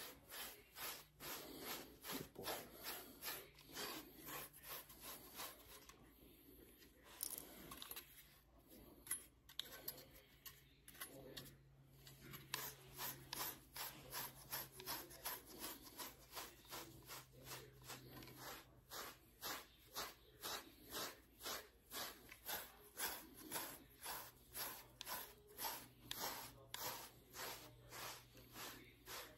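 A grooming brush stroked repeatedly through an American Akita's thick double coat, pulling out loose undercoat: a faint rhythmic rasping at about two strokes a second, with a couple of short pauses.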